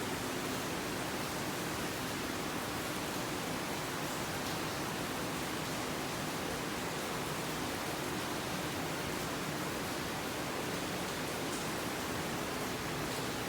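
Steady, even hiss with no distinct clicks or knocks: constant background noise.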